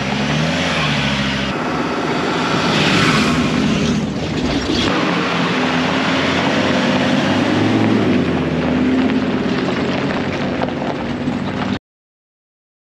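A 4WD ute driving on a dirt track: the engine note rises and falls over heavy tyre and road noise. It cuts off suddenly near the end.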